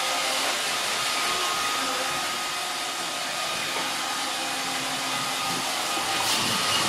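Roomba robot vacuum cleaner running, a steady whir with a faint thin tone above it.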